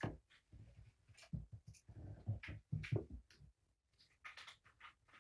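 Quiet, irregular rustling, clicks and knocks of items being handled and rummaged through, as when unpacking a bag of vet supplies and medication; busiest for the first three seconds or so, then only a few scattered clicks.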